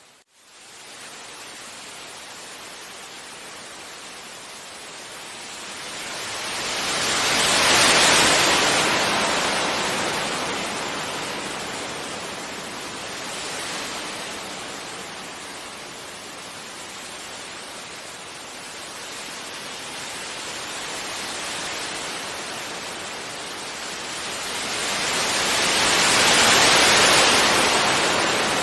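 Sea waves breaking gently on a beach: a steady wash of surf that swells into a loud breaking wave about eight seconds in and another near the end, with smaller swells between. A brief dropout at the very start.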